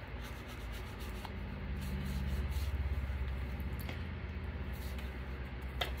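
A wooden-handled ink blending tool rubs along the edges of paper and cardstock, and the paper pieces are handled and set down with small rustles and taps. Under it runs a steady low hum that grows louder about a second and a half in.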